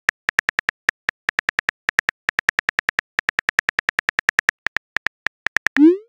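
Phone keyboard typing clicks from a chat-story app, in rapid runs of short taps with brief pauses, as a text message is typed out. Near the end comes a short rising whoosh: the message-sent sound.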